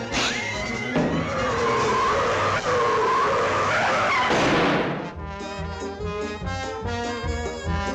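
Cartoon sound effect of roller skates rolling fast, a loud rushing skid with a wavering pitched tone over it. It stops about five seconds in, and orchestral cartoon score with brass takes over.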